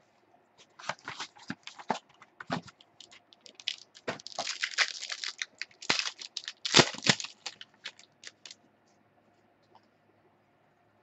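Plastic wrapping on a trading-card box being torn open and crumpled by hand: a run of short crinkling rips, densest in the middle, dying away about eight and a half seconds in.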